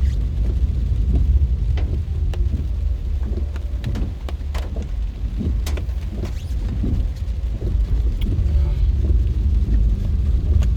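Car driving through heavy rain, heard from inside the cabin: a steady low road-and-engine rumble with scattered ticks of raindrops hitting the car.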